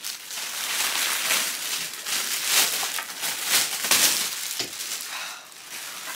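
Clear plastic bag crinkling and rustling as it is pulled off a sewing machine, an uneven run of crackles that eases off near the end.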